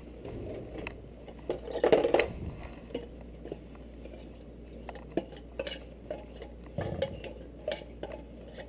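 Scattered light metal clinks and knocks against a stainless steel mixing bowl while thick condensed milk is poured in from a can. A denser cluster comes about two seconds in.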